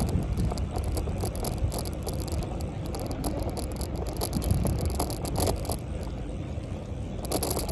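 Bicycle ride recorded from the bike: wind rumbling on the microphone, with irregular light clicks and rattles, a little busier near the end.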